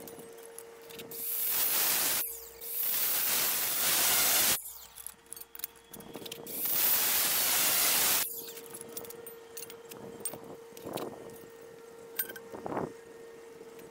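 Three loud hissing sprays from an aerosol can, each one to two seconds long, over a faint steady hum; a few quieter ticks and knocks follow near the end.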